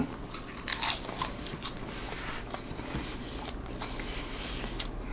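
A person chewing a mouthful of popcorn, with scattered crisp crunching crackles.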